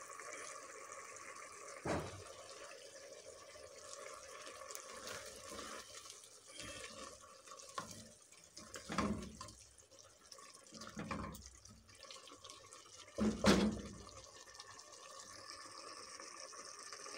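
Meat and masala sizzling as they are bhuna-fried in an aluminium pressure cooker, the dry-frying stage before water is added for the gravy. A silicone spatula stirs and scrapes the pan, with several louder scrapes along the way.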